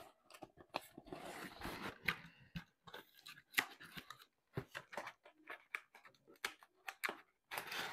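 Cardboard box being closed by hand: the lid flaps scraping and tucking in, with scattered taps, scratches and rustles of handling.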